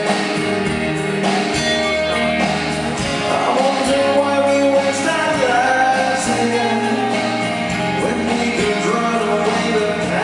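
Live rock band playing through a concert PA, with amplified guitar and a singing voice.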